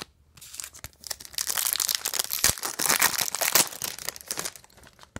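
Foil trading-card pack being torn open and its wrapper crinkled by hand: a dense, crackling rustle that starts about half a second in, is loudest in the middle and fades out near the end.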